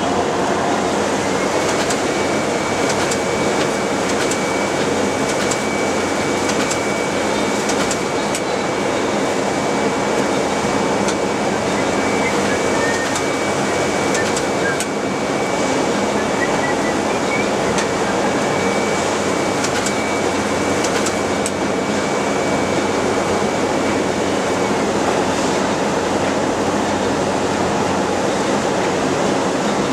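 Packaging machine running with a steady mechanical hum and rush. A thin high whine comes in about a second in and stops near the end, and light clicks are scattered throughout.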